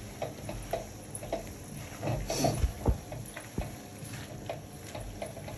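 Silicone spatula stirring creamy fettuccine in a frying pan: irregular soft taps and scrapes against the pan, with a couple of louder knocks near the middle.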